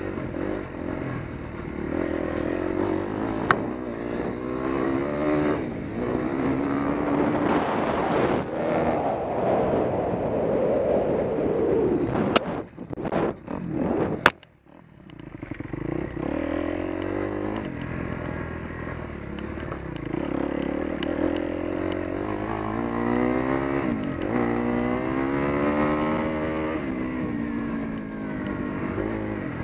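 Kawasaki KX250F's single-cylinder four-stroke engine being ridden on a dirt trail, its note rising and falling as the throttle is opened and closed. About halfway through, the engine sound drops away briefly between two sharp knocks, then builds back up.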